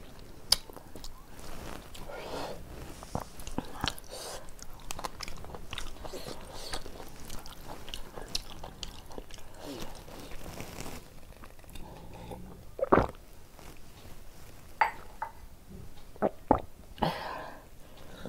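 Close chewing and wet mouth noises of a person eating by hand, with many short clicks and a few louder sharp smacks in the second half.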